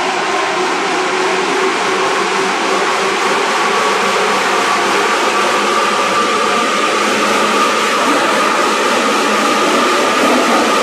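Saikyō Line 205 series electric commuter train running, heard from inside the carriage: steady rolling noise under a motor and gear whine that rises slowly in pitch.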